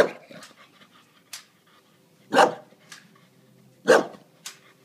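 English bulldog barking: three loud barks, spaced a second or two apart, with short huffs and pants between.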